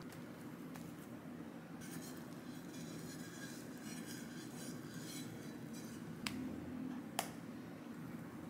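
Metal offset spatula scraping and spreading thick cream over a cake on a stainless cake turntable, with soft smearing and scraping in the middle and two sharp utensil clinks about six and seven seconds in, over a low steady room hum.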